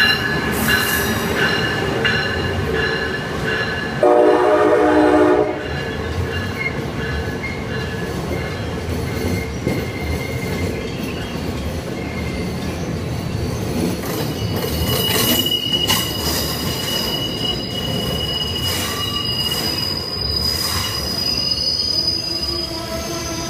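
Amtrak train hauled by a Siemens ACS-64 electric locomotive running past along a station platform, with a steady rumble of wheels on rail. The locomotive's horn sounds once, about four seconds in, for about a second and a half, and thin high wheel squeal rings out over the passing cars in the second half.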